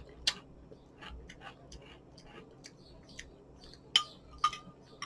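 Scattered light clicks and taps from small handling noises. One sharper click comes just after the start and two more about four seconds in.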